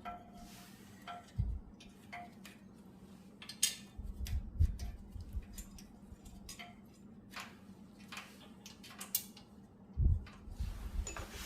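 Small metal carburetor parts being handled and fitted together, with scattered light clicks and clinks and a few duller knocks, as a mower carburetor is reassembled with new gaskets.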